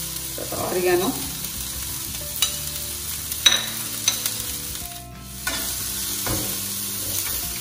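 Chopped mushrooms, spring onions and broccoli sizzling in oil on an iron pan, with a few light clicks in the middle. Near the end a metal spatula stirs and scrapes the mix across the pan.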